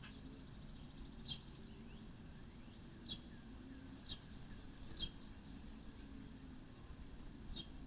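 A low, steady rumbling drone, the far-off roar that sounds like many race cars on a distant track, with short high chirps breaking in about once a second.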